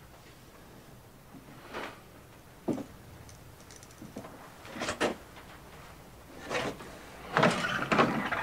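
Sparse light knocks and rustles of movement in a room, then a louder cluster of wooden knocks and creaks near the end as a wooden wardrobe door is opened.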